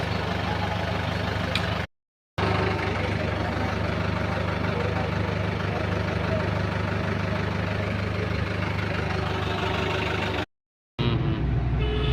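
Diesel engine idling steadily. The sound cuts out abruptly twice, for about half a second each time.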